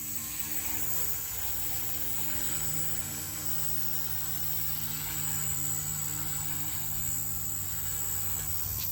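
Blade 150S electric collective-pitch RC helicopter in flight: a steady buzz from its spinning rotors with a thin high whine over it.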